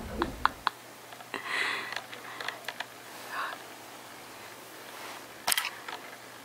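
Handling noise from a camera held close: a few small clicks and taps near the start, a couple more about two and a half seconds in, and a sharper knock about five and a half seconds in, with soft breathy sounds between.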